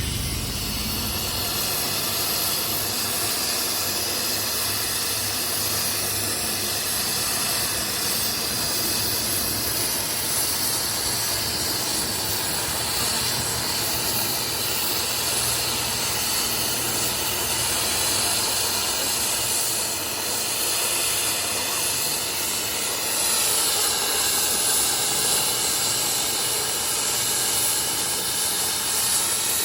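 A steady, loud hiss with a faint hum under it, running without a break.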